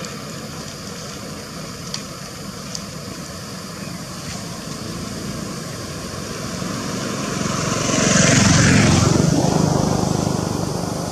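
A motor vehicle passing: engine and road noise swell to a peak about eight seconds in, then fade away.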